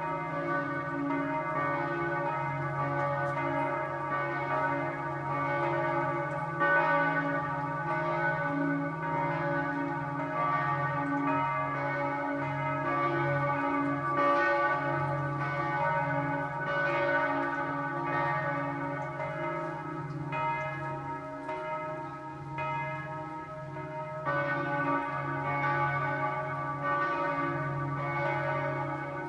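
Several church bells ringing together in a continuous peal, their strokes overlapping so the ringing never dies away.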